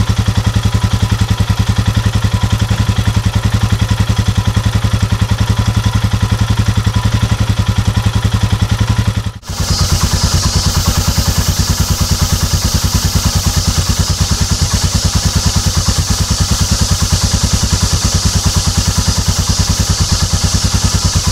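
Royal Enfield Himalayan's 411 cc single-cylinder engine idling steadily, heard at its stock exhaust as an even, rapid run of pulses. A short break about nine seconds in separates the stock engine from the same engine with a Booster Plug fitted to richen the mixture; the idle sounds much the same in both parts.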